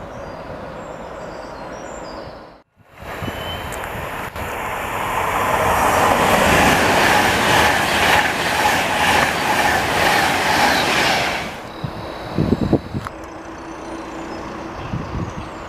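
A train passing through at speed, its wheels clattering rhythmically over the rail joints. The sound builds to a loud peak, then drops away suddenly, followed by a few heavy thumps.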